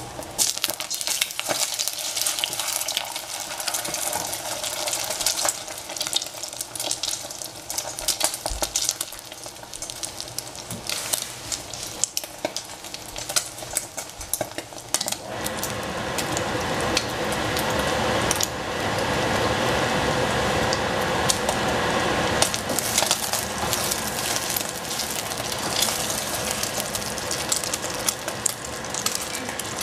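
Egg and tomato frying in oil in a pan, sizzling steadily, with a utensil clicking and scraping against the pan as it is stirred. The sizzling grows louder about halfway through.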